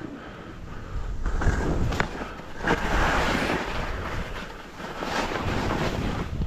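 Skis hissing and scraping over snow during a run, rising and falling in several swells, with wind rumbling on the microphone.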